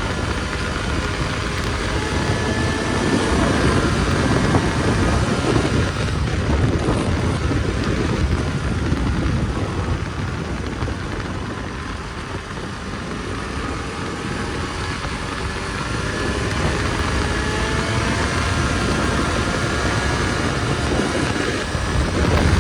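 Snowmobile engine running under way, its pitch drifting up and down a little over a steady rush of noise.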